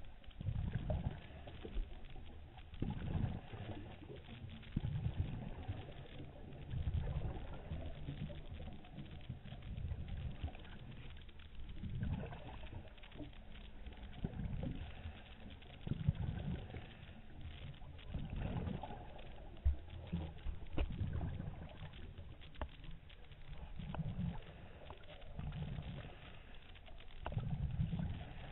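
Muffled underwater sound of a scuba diver breathing through the regulator: low bubbling rumbles of exhaled air come every two seconds or so, with a few faint clicks among them.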